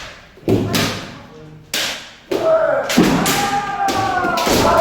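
Kendo sparring: several sharp cracks of bamboo shinai striking armour and feet stamping on a wooden floor in the first two seconds or so, then long drawn-out kiai shouts from more than one voice, starting about two and a half seconds in.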